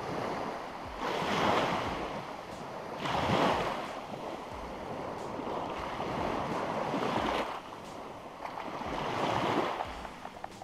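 Sea waves washing in and out, rising and falling in several washes a few seconds apart.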